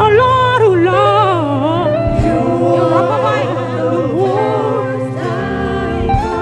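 Gospel praise singing with sustained low keyboard or bass tones underneath, the voices gliding through a melismatic line.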